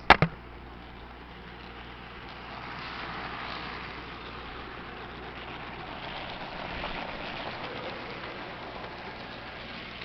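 Mehano SD40-2 HO-scale model locomotive pulling a train of cars along the track close by, turned down to a slower speed. It makes a steady running noise that grows louder for several seconds as the train passes, with a sharp knock just as it begins.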